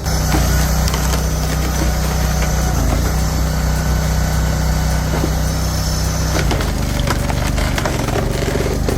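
Engine-driven wood chipper running and chewing through wood: a steady engine hum under a rough splintering, crushing noise, with the engine note shifting about six and a half seconds in.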